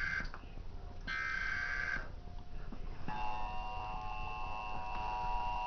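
Emergency Alert System tornado warning tones: the last two of the short screeching digital header bursts, each about a second long, end about two seconds in. About three seconds in, the steady two-tone EAS attention signal starts and holds.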